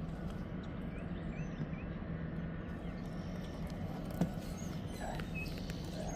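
Steady low hum and outdoor noise, with small birds chirping several times and one sharp knock about four seconds in.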